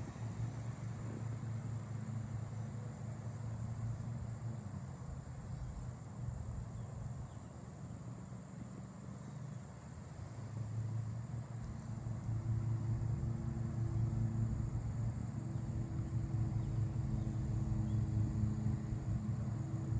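Southern ground cricket giving a steady high-pitched trill at close range, over the low steady hum of distant traffic that grows louder about halfway through.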